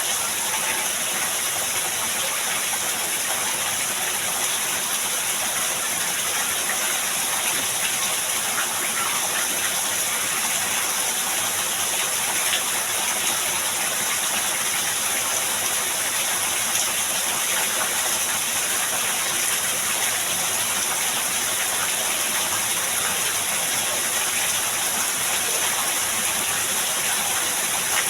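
Heavy rain pouring down steadily, a dense, even hiss without let-up.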